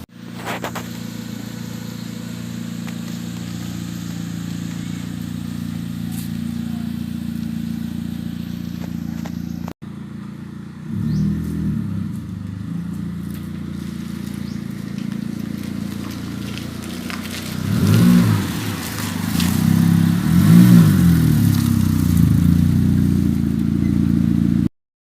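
Ford Fiesta Mk7's engine and Borla exhaust running at a steady idle, then blipped several times in the second half. The muffler joint has just been sealed with gasket maker to cure an exhaust leak.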